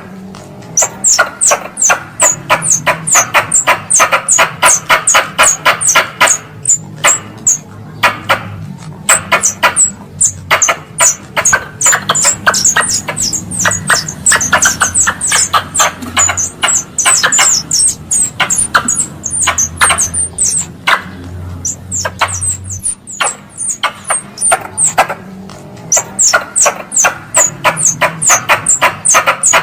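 Wild squirrel lure call: a fast, sharp chattering of repeated high chirps, several a second, in long runs broken by short pauses.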